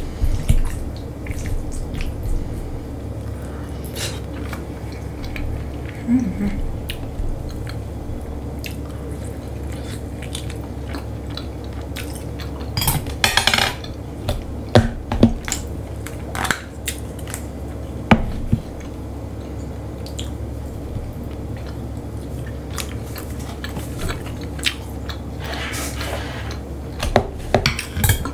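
Cutlery clinking and scraping on a plate every few seconds during a meal of grilled meat, with quiet chewing between. A steady low hum runs underneath.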